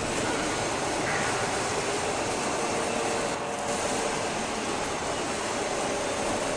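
Steady din of machinery running in a steel fabrication workshop, an even noise with a faint hum.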